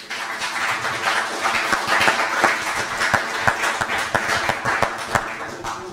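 Audience applauding: many hands clapping at once, starting suddenly and tapering off near the end.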